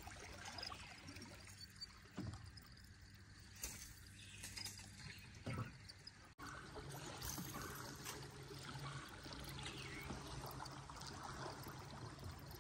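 Faint trickling and lapping water around a small jon boat, with a few soft knocks and splashes. About halfway through, a low steady hum joins it.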